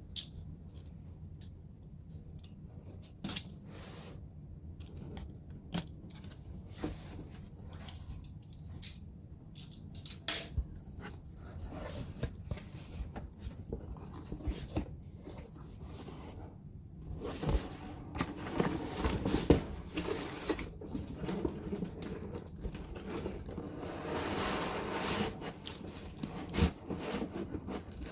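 Cardboard box being opened and its packaging handled: scattered clicks, scrapes and rustling that grow busier and louder about two-thirds of the way through.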